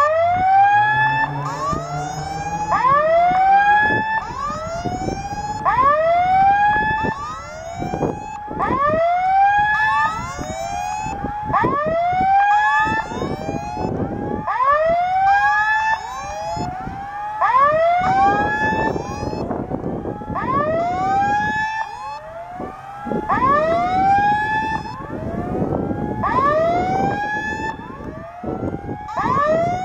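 Level-crossing warning signal sounding, a short electronic tone that swoops up in pitch and repeats about once a second, warning that a train is approaching.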